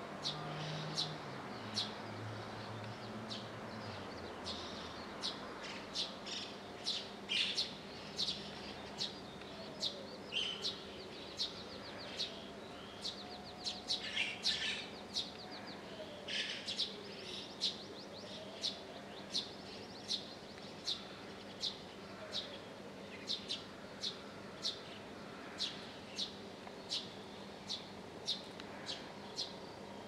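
Eurasian tree sparrow chirping: short, sharp chirps repeated about once or twice a second, in places coming in quick clusters.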